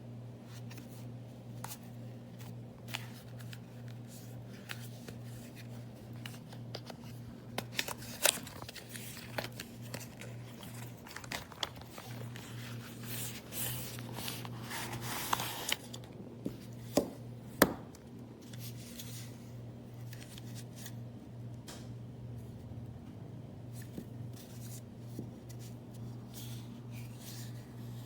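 Handling sounds of a USB-C adapter and its cable: scattered plastic clicks, rubbing and scraping, with two sharp clicks a little past the middle, as it is fitted to a port. A steady low hum runs underneath.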